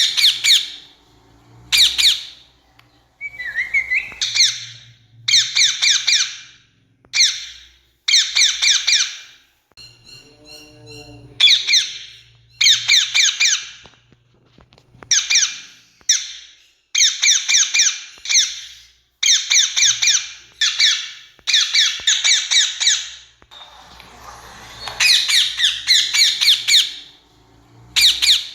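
Rose-ringed parakeets screeching in bouts of rapid harsh notes, each bout about a second long and repeated every second or two. A softer, different chirping fills a short lull about ten seconds in.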